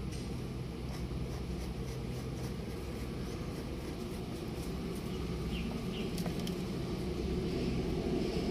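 Steady low rumble in the background, with faint light clicks of a wrench working the negative battery terminal clamp loose.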